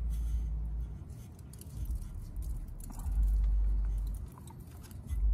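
Hands unscrewing a motorcycle oil filter and handling crinkling aluminium foil, with small scattered clicks and taps. A low rumble of wind on the microphone comes and goes in gusts and is the loudest sound.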